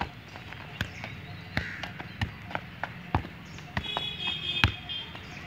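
Football being kicked and bouncing on the ground: a run of irregular sharp thuds, about two or three a second, with a brief high chirping about four seconds in.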